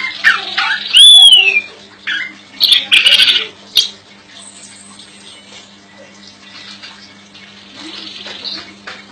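Female chestnut-capped thrush calling: a run of loud whistled notes that glide up and down, mixed with short harsh bursts, in the first four seconds, then only faint calls for the rest. A steady low hum lies underneath.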